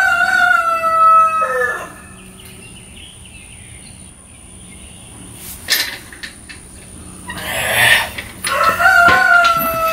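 A rooster crowing twice: a long crow at the start that drops in pitch as it ends, and a second crow near the end. Shortly before the second crow comes a brief breathy rush of noise.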